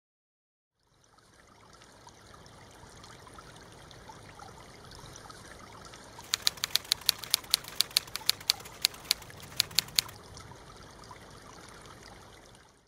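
Water running and trickling over a wet mountain road and rock face, a steady hiss that fades in. In the middle comes a quick, irregular run of sharp clicks, about five a second, for roughly four seconds.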